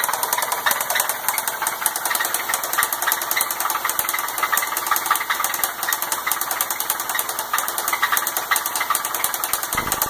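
Ford Taurus 3.0-litre Duratec V6 (24-valve, double overhead cam) running at idle with a rapid, steady rapping knock. The knock comes from the top end, which the owner places in the rear bank nearest the firewall, and he judges the engine worn out and in need of replacing.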